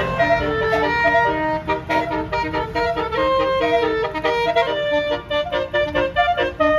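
Bus's basuri telolet musical horn playing a fast melody of short reedy notes, several sounding together at times, over a steady low rumble.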